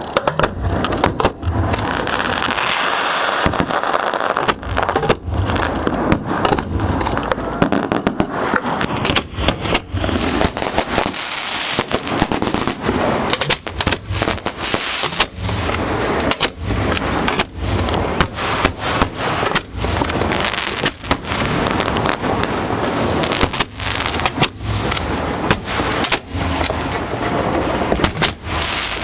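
Fireworks finale fired at close range: a rapid, near-continuous barrage of shells going off, the bangs overlapping one another with crackle between them.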